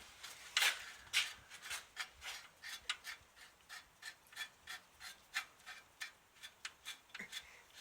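Socket ratchet clicking in a rhythm of about three clicks a second as it is swung back and forth, running down the hub mounting bolts.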